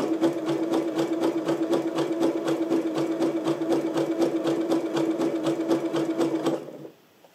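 Janome sewing machine stitching a wide, close zigzag with a fringe foot: a steady motor hum under a rapid, even ticking of the needle. It stops under a second before the end.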